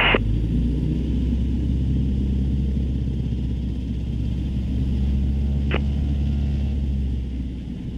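Cessna 150's four-cylinder Continental O-200 engine running steadily at low power in the cockpit as the plane taxis on the runway, with a single short click about two-thirds through.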